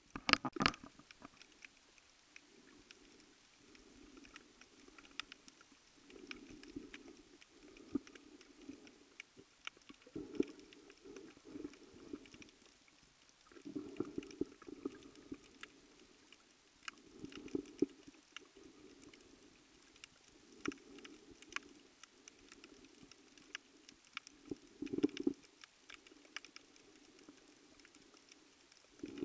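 Underwater ambience picked up beneath the sea surface: a muffled low swishing of water that swells and fades every second or two, with scattered sharp clicks and crackles, the loudest just at the start.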